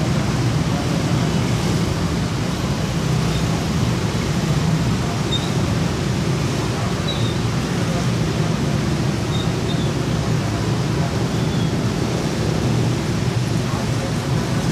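Steady road traffic noise from motorcycles, cars and a truck driving across a railway level crossing: engines running and tyres on the road, with a low steady hum of traffic. A few faint, short high chirps sound over it.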